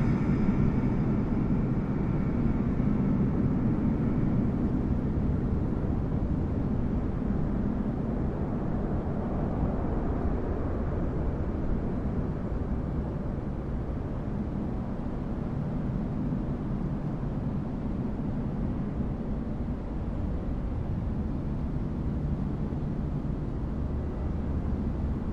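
Jet airliner's engines as a low, steady rumble that slowly fades, a whining high tone dying away just before it.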